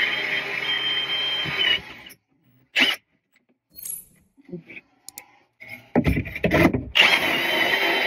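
Cordless drill/driver running steadily as it drives screws into a cabinet, stopping about two seconds in. After a few seconds of near quiet with a couple of small clicks, it starts again with a loud rough burst about six seconds in and runs steadily to the end.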